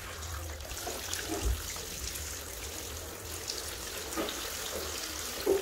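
Water running from a hand-held shower head into a bathtub lined with stones, a steady splashing rush as the tub fills. A few brief knocks break through it, the loudest near the end.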